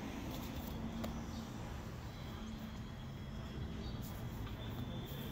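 Steady low outdoor rumble with a faint steady hum, and a few faint clicks and scuffs, a cluster of them about four seconds in.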